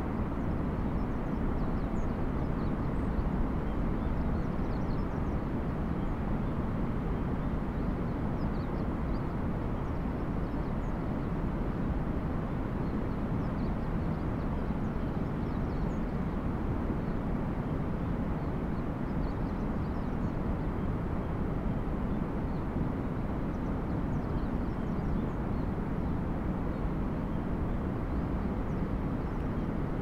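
Steady low outdoor background rumble with faint, scattered high chirps.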